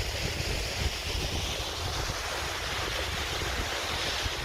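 Steady rush of Powerscourt Waterfall's falling water, with wind buffeting the microphone in a gusty low rumble.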